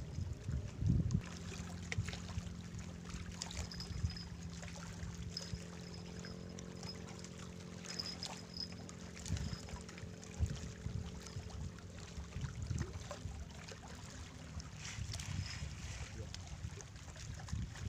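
A steady engine drone from an unseen motor, most likely a boat's, which comes in about a second in and fades away about three-quarters of the way through, under gusts of wind buffeting the microphone.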